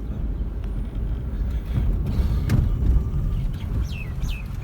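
A car driving, heard from inside: a steady low road and engine rumble, with a sharp click about two and a half seconds in and a few short falling high chirps near the end.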